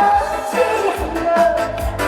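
Live trot song: a woman singing over an amplified backing track with a steady beat.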